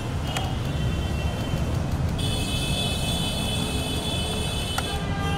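Street traffic noise: a steady low rumble of road vehicles. From about two seconds in to about five seconds in, a steady high-pitched tone sounds over it.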